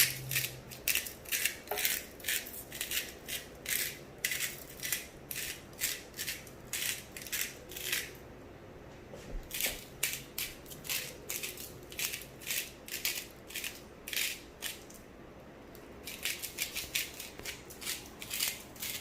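A seasoning shaker shaken over chicken, rattling in short strokes about twice a second, with brief pauses twice.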